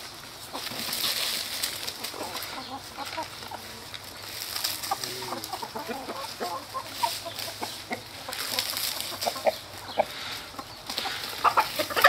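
A flock of chickens, hens and roosters together, clucking in short, scattered calls that overlap from several birds.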